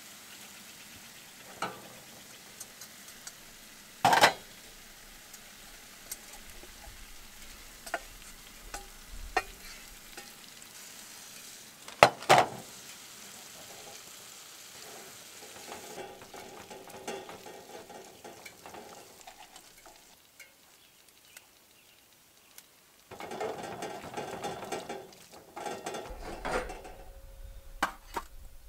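Food sizzling faintly in a frying pan while a metal utensil stirs and scrapes it, with several sharp clinks of metal on the pan, the loudest about four and twelve seconds in.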